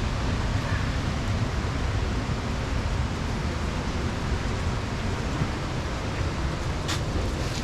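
Floodwater of a swollen river rushing over rocks: a steady, unbroken roar of water. A brief click about seven seconds in.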